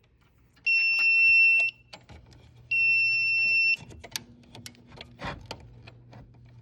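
Fire alarm control panel's trouble buzzer sounding two long, steady, high-pitched beeps about a second each and two seconds apart, signalling a power trouble condition. Scattered light clicks and taps follow.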